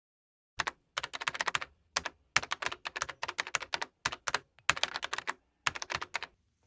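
Typing on a keyboard: several quick runs of sharp key clicks separated by short pauses.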